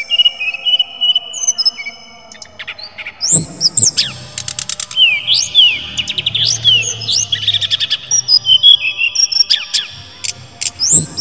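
A caged sikatan rimba dada coklat (jungle flycatcher) singing clear whistled notes. After a short lull it breaks into a fast, busy run of rising and falling whistles mixed with sharp clicks from about three seconds in.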